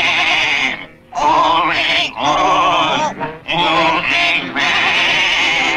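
A chorus of cartoon sheep bleating, about five long wavering bleats in a row with short breaks between them.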